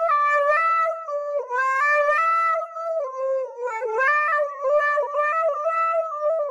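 Husky howling into a handheld karaoke microphone: one long, wavering howl that steps up and down in pitch like a tune, with only short breaks.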